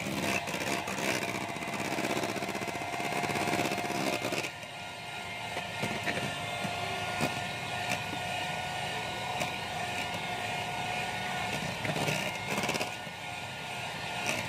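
Electric mixer running steadily, whipping souffle pancake batter, with a constant motor hum.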